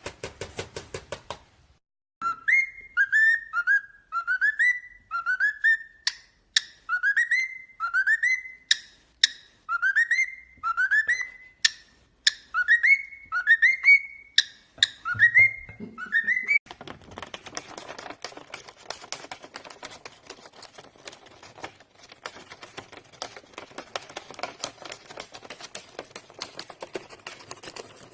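A pet parrot whistling a run of about fifteen short whistles, each swooping up and falling back, with sharp clicks between some of them. About seventeen seconds in the whistling stops and a steady crackling hiss with fast ticks takes over.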